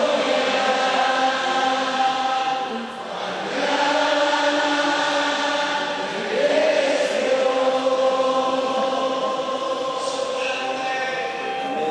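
Christian worship song playing: voices singing long held notes, changing pitch about three seconds in and again about six seconds in.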